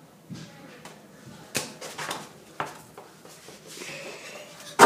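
A few light knocks, then near the end one loud bang against a door as a dunk hits an over-the-door mini basketball hoop.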